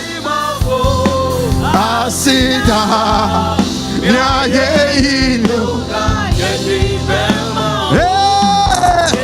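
Gospel worship singing over instrumental accompaniment with steady low notes. The sung line moves continuously, with one long held note near the end.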